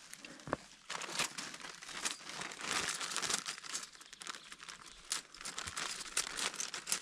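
Plastic bag crinkling and rustling as it is handled, starting about a second in and going on in quick irregular crackles.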